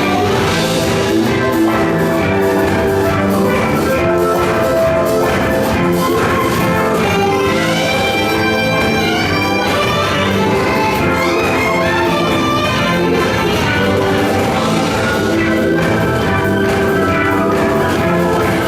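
Ensemble music playing steadily, with many instruments: held melodic notes over a steady percussive beat.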